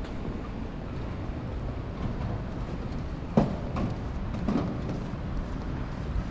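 Outdoor city street noise: a steady low rumble, broken by a sharp knock about three and a half seconds in and two lighter knocks soon after.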